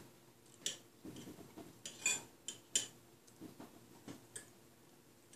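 Metal forks clinking and scraping on breakfast plates while eating: a handful of sharp, ringing clinks, the loudest about two and three seconds in.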